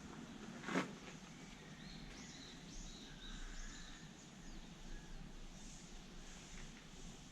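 Small birds chirping, a run of short high calls through the middle, over faint background noise. A single sharp knock comes just under a second in.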